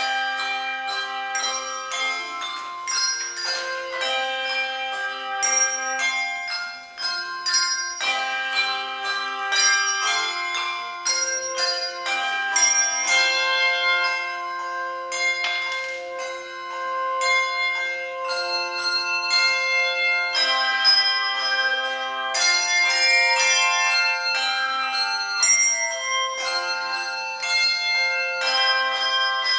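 Handbell choir playing a piece: many handbells rung in chords and melody, each note ringing on after it is struck.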